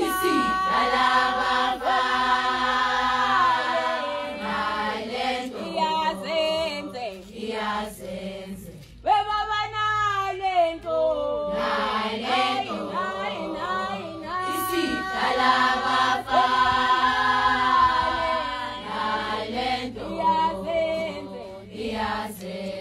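A group of young Zulu women singing a cappella in harmony. One voice rises alone, louder, about nine seconds in, before the group comes back in.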